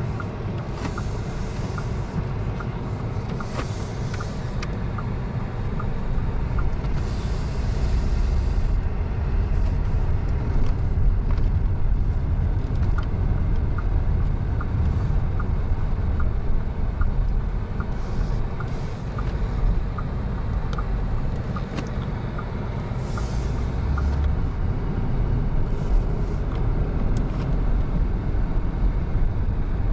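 Cabin sound of a 2024 Bentley Flying Spur's twin-turbo 4.0-litre V8 driving: a steady low engine and road rumble that grows a little louder about six seconds in as the car gathers speed. A regular light ticking sounds through most of it.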